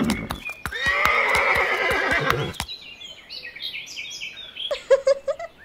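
A horse whinnying: one loud, shaky neigh of about two seconds, followed by quieter bird chirps.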